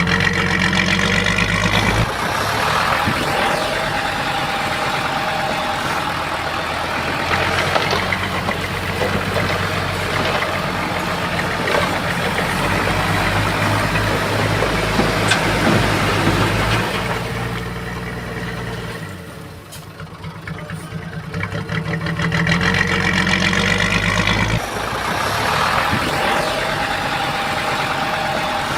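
Komatsu bulldozer's diesel engine running under work, dropping off briefly about two-thirds of the way through and then building back up.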